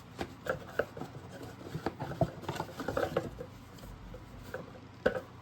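Product boxes and packaging being handled: a string of light knocks, taps and rustles over the first three seconds or so, then one more knock near the end.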